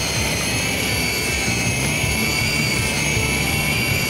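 Electric fishing reel (Shimano Beast Master 2000) winding in a hooked fish: a steady motor whine that dips slightly in pitch and rises again as the load changes, over a low engine hum.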